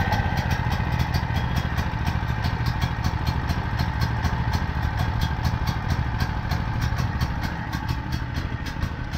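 Predator 4375 portable generator's single-cylinder gasoline engine running steadily just after being restarted with the recoil pull, a low hum with a fast even beat. It gets a little fainter near the end.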